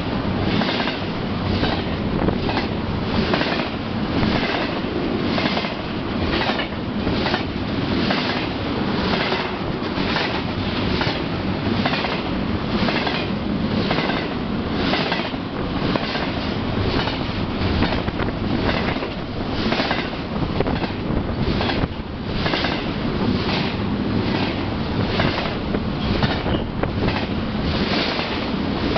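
Double-stack intermodal train's container well cars passing close by: steady rolling rumble of wheels on rail, with a regular clickety-clack of wheels going over the track.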